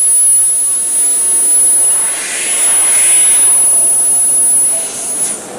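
Fiber laser metal-cutting machine running: a loud, steady hiss with a high whine over it, which cuts off shortly before the end.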